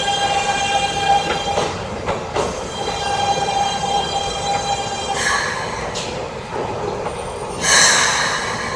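Steel train wheels squealing on curved track: a stack of steady high tones held throughout, with two short bursts of hiss about five and eight seconds in.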